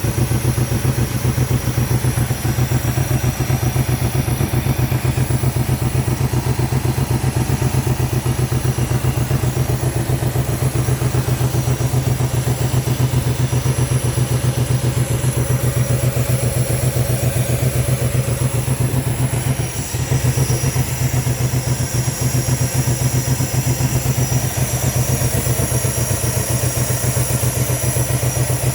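Range Rover L322's 4.4-litre V8 idling with a steady pulsing beat, with a brief dip in the running about two-thirds of the way through. The engine has a random misfire from faulty coil packs on cylinders 3 and 7.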